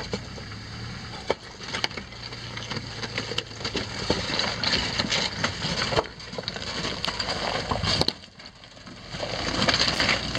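Jeep Wrangler YJ crawling slowly over loose rocks. The engine runs low under a steady crunch of gravel, with sharp cracks and clicks of stones shifting and snapping under the tyres. It grows louder as the Jeep nears, with a brief lull shortly before the end.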